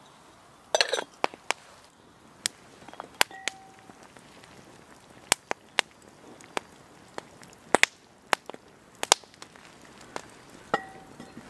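Wood campfire crackling, with sharp pops and snaps at irregular intervals. About a second in, a short run of metal clinks as a lid is set on a metal pot.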